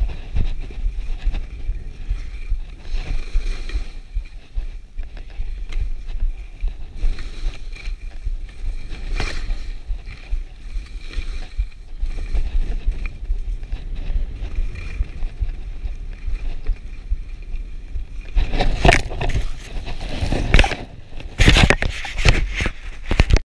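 Wind buffeting an action camera's microphone: a steady low rumble with an uneven hiss. Louder crackling and knocking bursts come in the last five seconds.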